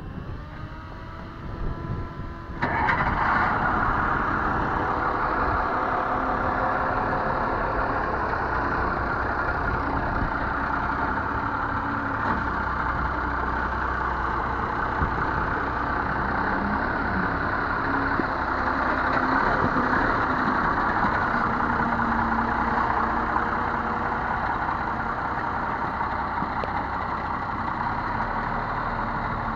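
Military 6x6 truck's diesel engine cranked by its starter with a rising whine, catching suddenly about two and a half seconds in. It then runs steadily as the truck moves off slowly.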